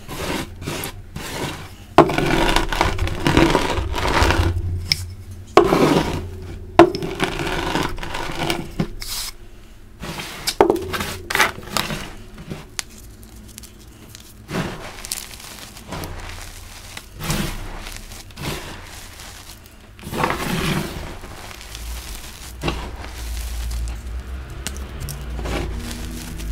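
Hands crushing, rubbing and sifting crumbly dyed gym chalk among chalk gravel and powder: irregular crunches, scrapes and crackles, with a few sharper cracks in the first seven seconds.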